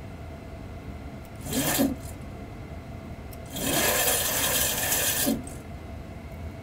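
Boeing 737 nose-gear wheels, just retracted, rubbing against the snubber in the nose wheel bay, which slows their spin. This gives a rasping noise in two bursts, a short one about a second and a half in and a longer one from about three and a half to five seconds, over a steady flight-deck hum.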